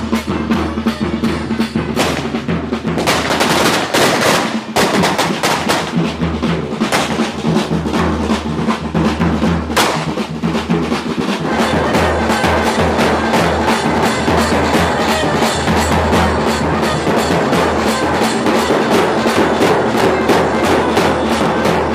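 A street drum band of snare and bass drums beating a fast, steady rhythm. Firecrackers go off over it in a run of bangs about two to five seconds in, and once more near ten seconds.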